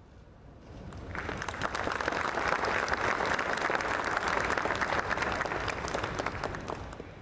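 Audience applauding: many hands clapping, starting about a second in, holding steady, then dying away near the end.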